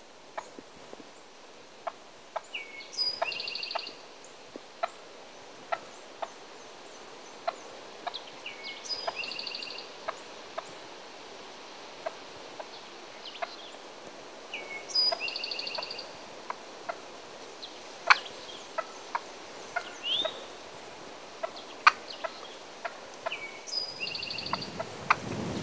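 Young wild turkey toms (jakes) calling: a short rattling call repeated about every six seconds, with many short, sharp notes in between.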